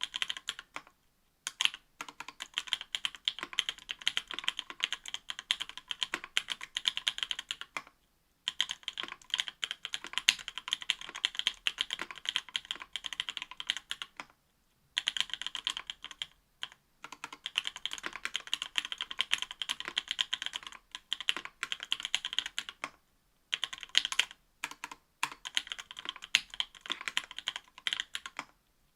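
Typing on a mechanical keyboard fitted with stock, unlubed C³ Equalz x TKC Tangerine 67g linear switches in an aluminium plate, under GMK ABS keycaps: rapid, even keystroke clacks. The typing comes in long bursts broken by several short pauses.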